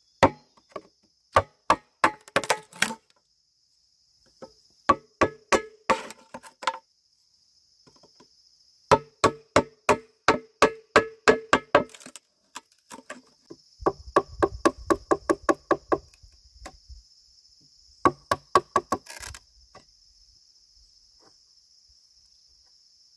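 Hand tool striking bamboo in quick runs of blows, about four a second, each blow with a short ringing pitch. The runs come in several bursts with pauses between them, the longest about 9 to 12 seconds in.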